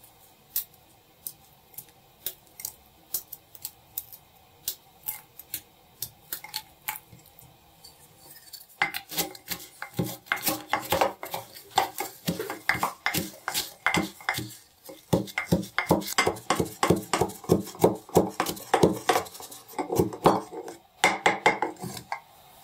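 A metal utensil clinking against a dish: a few separate taps at first, then from about a third of the way in, rapid continuous clinking and scraping, as when mixing in a bowl.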